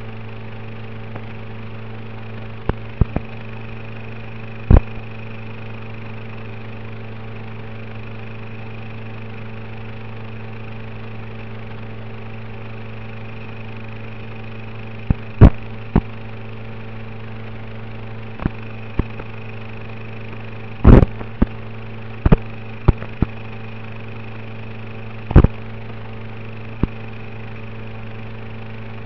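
Steady electrical buzz and hiss from the audio channel of an FPV goggle DVR recording, broken by a dozen or so sharp crackles and pops at irregular moments, the loudest about 5, 15, 21 and 25 seconds in.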